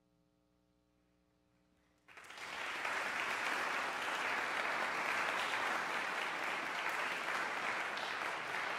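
About two seconds of near silence, then audience applause starts suddenly and carries on steadily.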